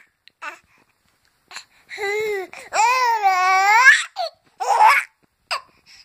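Baby laughing in high-pitched squeals: a short one about two seconds in, a longer drawn-out one right after, and a brief burst near the end.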